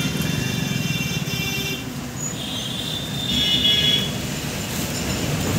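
Road traffic with a steady low rumble, and a vehicle horn sounding twice, each for about two seconds: once at the start and again about halfway through.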